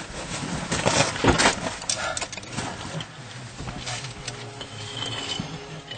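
A caver's suit and gear scraping and rustling against rock while crawling through a narrow passage. The sound is irregular and loudest in the first two seconds or so, then quieter with a few scattered scrapes.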